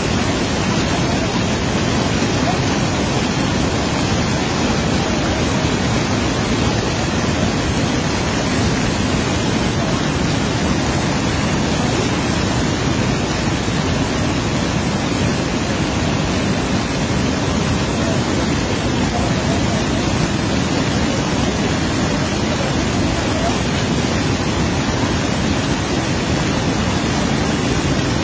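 Fast-flowing muddy floodwater pouring across a road, a steady loud rushing of water.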